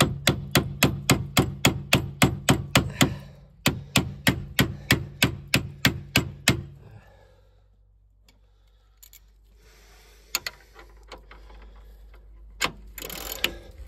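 Hammer rapidly striking a steel socket to drive it onto a bolt head that it is too tight to go onto by hand: about four metal blows a second in two runs, stopping about six and a half seconds in. A few faint clicks follow.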